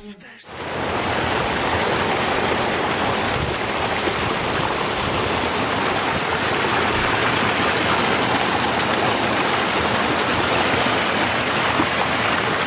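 River water rushing and splashing over rocks in a small cascade, a steady, loud rush of white water heard close up. It starts about half a second in.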